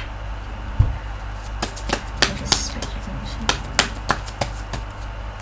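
A deck of tarot cards being shuffled and handled by hand: a string of short, sharp flicks and taps, with one low thump about a second in.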